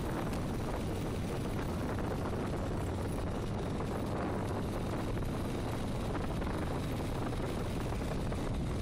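Quad bike engine running steadily on the move, with the tyres rolling over a dirt track.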